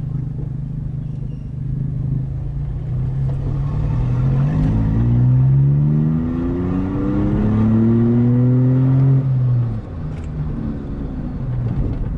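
Volkswagen Up TSI's turbocharged 1.0-litre three-cylinder engine running open through the downpipe with the rest of the exhaust removed, heard from inside the cabin. It drones steadily at first, then rises in pitch and loudness under acceleration for several seconds before dropping away sharply as the throttle is released near the end.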